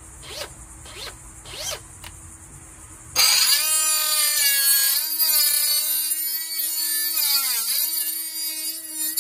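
A multi-purpose power saw starts up about three seconds in and cuts into PVC pool plumbing pipe with a loud, steady, high whine. Its pitch sags briefly a little past the middle as the blade loads up in the cut.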